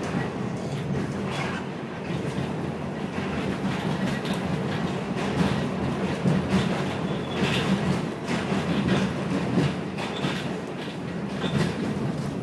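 New York City subway car on the A line running between stations, heard from inside the car: a steady rumble with the wheels clacking irregularly over the rails.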